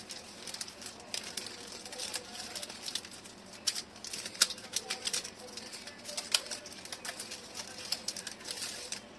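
Sheets of stiff wrapping paper crinkling and rustling as they are handled and folded around a bouquet, with many sharp irregular crackles.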